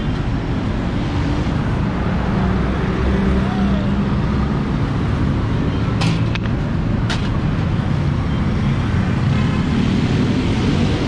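Steady road traffic noise from passing cars and motorbikes, with two sharp clicks about six and seven seconds in.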